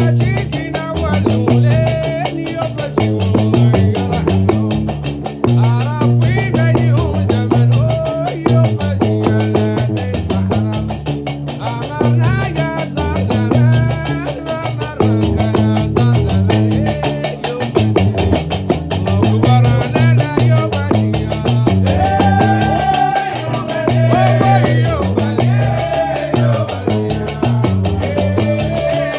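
Gnawa music played live: a guembri plucking a repeating, stepping bass line under the fast metallic clatter of several pairs of qraqeb iron castanets, with men singing over it.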